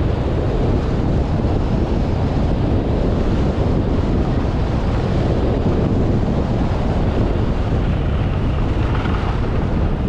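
Steady, loud wind buffeting the microphone of a skier's camera moving fast downhill.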